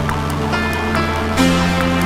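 Background music: sustained chords over a light beat, moving to a new chord about a second and a half in.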